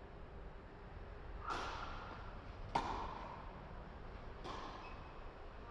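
Racket strikes on a ball in a singles rally, three sharp hits about a second and a half apart, the middle one loudest, each ringing briefly in a reverberant indoor hall.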